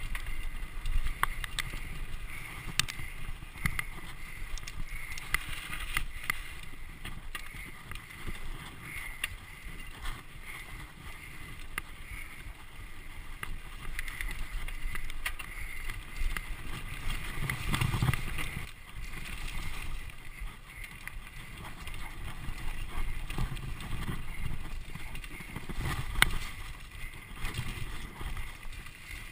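Mountain bike ridden over dirt singletrack: continuous rumbling and rattling of the bike and tyres over the rough ground, with frequent sharp clicks and knocks. A heavier jolt comes about 18 seconds in, and the loudest knock about 26 seconds in.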